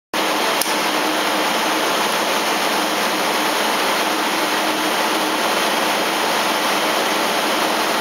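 Steady, loud, even rushing noise of machinery running, like a large fan, with a faint low hum underneath; a small click about half a second in.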